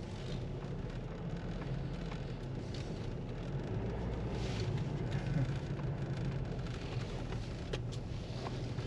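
Car driving slowly, heard from inside the cabin: a steady low engine hum with tyre and road rumble.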